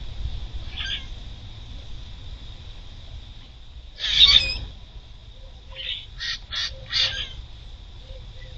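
Grackles giving harsh, squawky calls: one loud call about four seconds in, then a quick run of four short calls. A steady high hum runs underneath.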